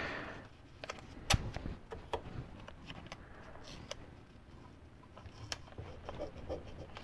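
Faint handling sounds of green painter's tape being shaped and pressed onto a micrometer's cast-iron frame: scattered small taps and rustles, with one sharper click about a second in.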